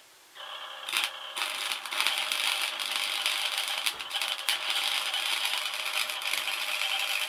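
MIG welder arc crackling and spitting as it lays a bead, sparks and spatter flying. It starts faintly about half a second in and settles into a steady, dense crackle from about a second and a half.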